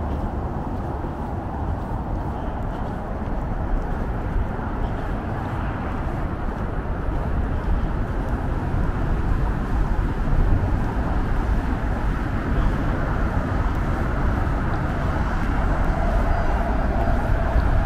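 Steady road traffic noise from cars on multi-lane roads and an elevated expressway, a continuous rumble that grows slightly louder near the end.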